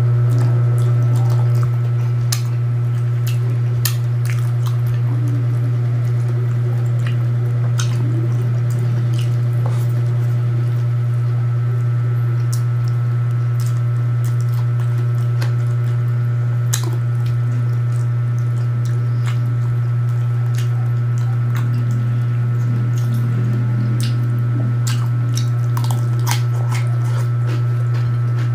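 Close-up mukbang eating sounds: wet squishing, chewing and lip-smacking with scattered sharp clicks as kinilaw and rice are eaten by hand. A steady low hum runs underneath and is the loudest sound.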